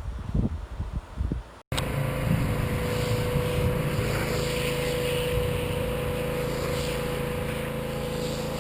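A few short irregular knocks, then, after a sudden cut, an engine or motor running steadily with an even hum and a held tone.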